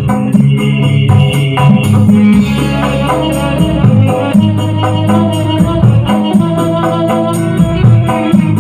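Loud music played through a speaker cabinet driven by a home-built power amplifier under test, with a heavy bass line and a fast, even shaker-like percussion tick.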